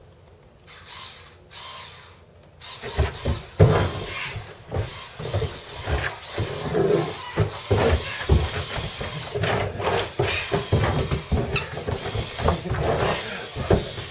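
A Great Dane leaping and pouncing on a carpeted floor, its paws thumping and scuffling irregularly from about three seconds in. Before that comes the short whir of an electric screwdriver, twice.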